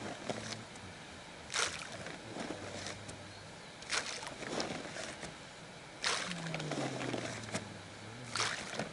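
Handfuls of groundbait thrown by hand splashing into a pond, four times about two seconds apart.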